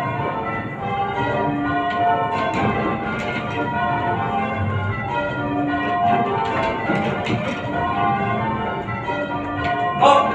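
A ring of eight church bells being rung in changes: a continuous, even succession of bell strokes sounding one after another in shifting order.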